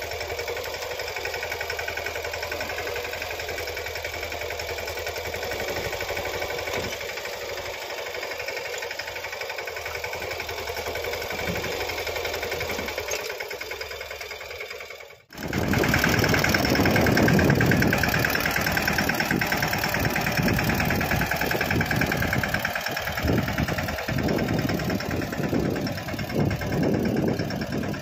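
Mahindra Yuvraj mini tractor's single-cylinder diesel engine running steadily under load while pulling a mouldboard plough through the soil. The sound cuts out briefly about fifteen seconds in and comes back louder.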